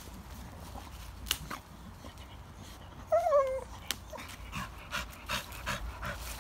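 Pocket American Bully dog giving a short falling whine, then panting in quick, even breaths, about three a second: the dog is worn out.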